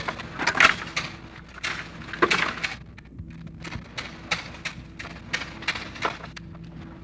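Damaged 16mm magnetic film soundtrack: irregular crackling knocks, louder in the first few seconds and then settling to about three a second, over a low steady hum.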